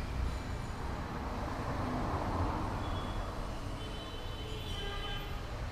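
Steady background rumble and hiss, swelling slightly in the middle, with a few faint high tones near the end.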